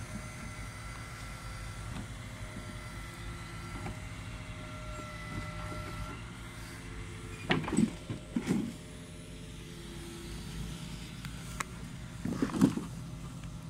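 Boom truck engine running steadily while the grapple crane works, with a cluster of short heavy knocks a little past the middle and another near the end.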